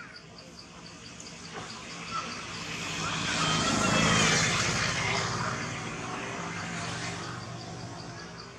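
A motor vehicle passing by, growing louder to a peak about four seconds in and then fading away, with an insect chirping in a steady rhythm behind it.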